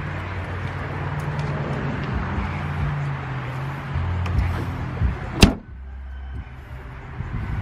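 Outdoor background noise with a low steady hum, broken by one sharp bang about five seconds in, after which everything is much quieter.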